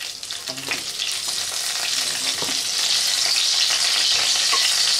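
Pointed gourd pieces sizzling in hot oil in a nonstick kadai, with a wooden spatula scraping and knocking against the pan as the fried pieces are lifted out. The sizzle grows louder and steadier after about two seconds.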